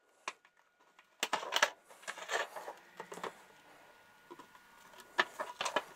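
Metal spoon scraping and clicking against a serving tray as mayonnaise is spread across its bottom, in short irregular strokes.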